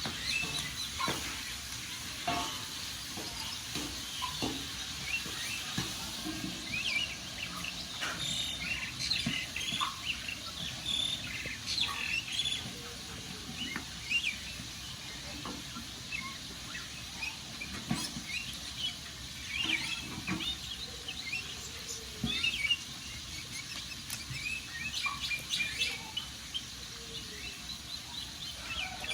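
Wood fire crackling with scattered sharp pops, while small birds chirp and twitter over it.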